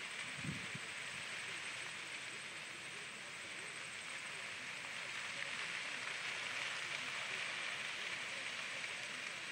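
Grass fire burning across a paddock: a steady crackling hiss from the flame front. A brief low sound comes about half a second in.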